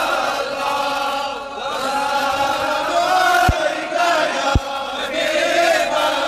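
A crowd of men chanting a devotional naat refrain together in long, held notes. Two short low thumps land about a second apart in the middle.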